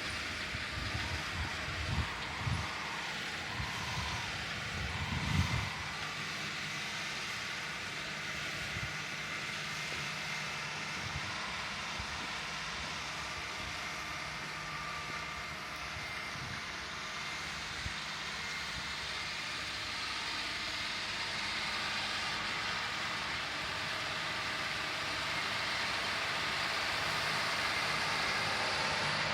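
John Deere 9360R tractor's diesel engine pulling an 8-bottom moldboard plow under load, a steady drone that grows louder over the last third. Wind gusts buffet the microphone in the first few seconds.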